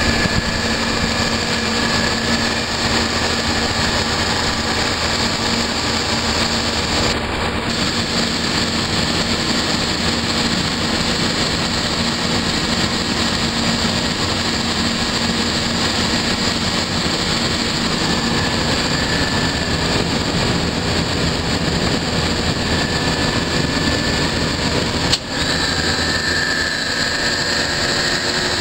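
Copeland semi-hermetic three-phase refrigeration compressors running with their condenser fans: a steady hum over an even fan rush.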